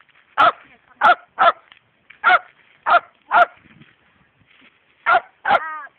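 A dog barking: about eight short, sharp barks, mostly in quick pairs, the last drawn out into a brief whine.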